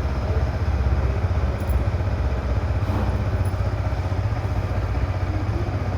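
Yamaha R15's single-cylinder engine idling steadily with a deep, even exhaust note.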